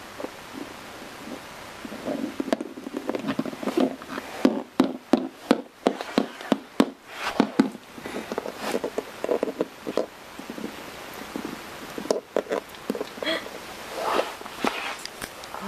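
Plastic toy horse figurines tapped and walked across a wooden floor: a run of irregular light clicks and knocks, busiest in the first half.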